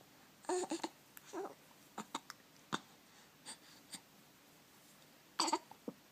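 An 8-week-old baby making short, sudden vocal sounds: small grunts, squeaks and catches of breath, scattered irregularly, the loudest about half a second in and just before the end.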